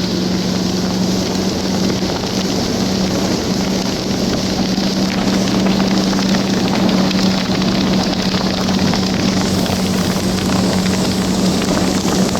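Four Winns motorboat's engine running steadily at planing speed while towing a tube, its hum held at one pitch under a rush of wind and water.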